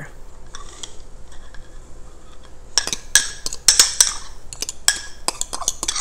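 A spoon scraping and clinking against a small glass bowl as batter is scraped out into a mini waffle maker. After a quiet start, the second half brings a quick run of sharp clicks and scrapes.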